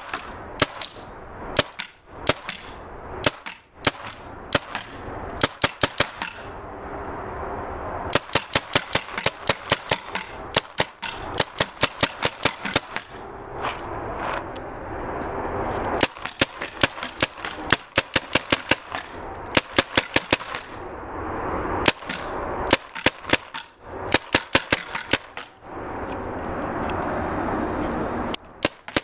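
Tippmann Cronus paintball marker on CO2 firing rapid strings of semi-automatic shots, about three a second, with short pauses between the strings.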